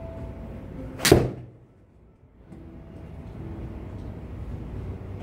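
Golf club striking a teed ball in an indoor simulator bay: a single sharp smack about a second in, with a short ringing tail.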